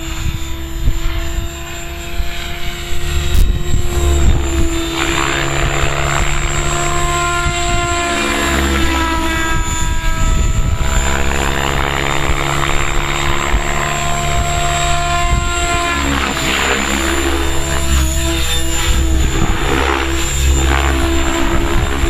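Compass Atom 6HV electric RC helicopter in flight, its Kontronik Pyro brushless motor and gear train whining steadily while the rotor blades rush, the rushing swelling and fading as it flies through manoeuvres. Wind rumbles on the microphone.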